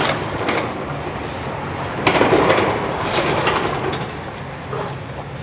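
Timbers of a wood-frame house cracking and crashing down under demolition, with a burst of splintering and falling debris about two seconds in that lasts a couple of seconds and a smaller crack near the end. A steady low engine hum of heavy machinery runs underneath.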